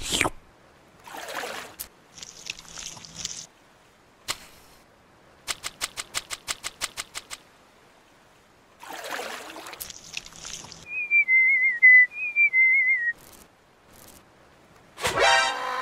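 A string of cartoon sound effects for a stop-motion animation: sharp clicks and short swooshes, a quick run of about fifteen even clicks, then a wavering whistle that drifts slowly down in pitch for about two seconds. A ringing musical tone starts near the end.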